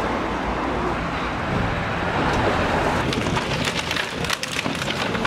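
Volvo excavator demolishing a wall: its engine runs steadily. From about three seconds in comes a quick run of cracks, snaps and knocks as wall panels and boards break and crumble under the bucket.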